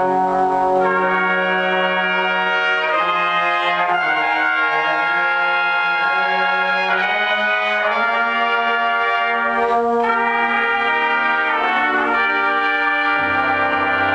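Brass ensemble of trumpets and trombones playing sustained chords that change every second or two. A lower bass note comes in near the end.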